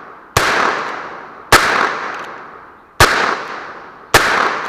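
A Heritage Rough Rider .22 single-action revolver firing four shots, about a second and a half apart, each trailing off in a long echo.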